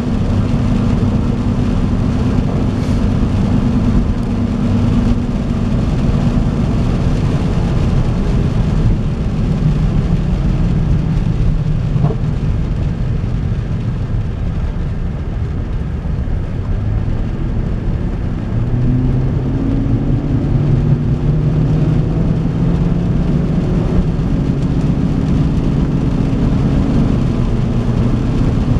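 Inside the cab of a 2007 Chevy Avalanche with its 5.3-litre V8 under way: steady engine and road noise. The engine note sags and quietens in the middle, then climbs and grows louder again about two-thirds of the way through as the truck picks up speed.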